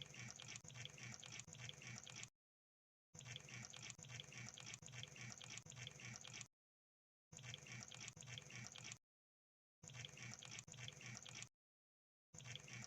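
Crab sound effect: rapid crackling clicks in stretches of one to three seconds, cut off by short gaps of dead silence and starting again, five times.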